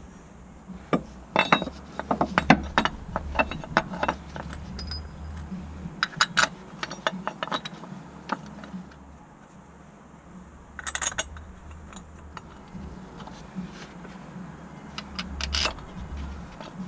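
Metal tools and parts clinking and clicking in scattered bursts as they are handled, over a steady low hum.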